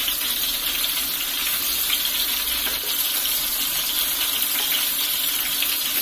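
Marinated prawns deep-frying in hot oil in a pan: a steady, even sizzle of bubbling oil. The prawns have just been turned over to brown on their second side.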